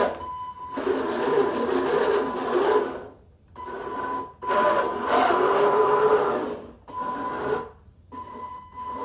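A small 3D-printed electric cart's drive motors and two-stage printed gear reduction whirring under a load of dumbbells, starting and stopping several times as it drives back and forth, with a steady high whine under the gear noise.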